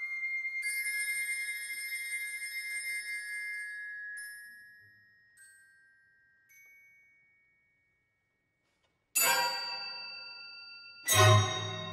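Orchestral music. High, bell-like ringing tones die away, followed by a few soft pings and a short silence. Then come two loud, sharp orchestral chords about two seconds apart, the second with a deep low note underneath, each left ringing.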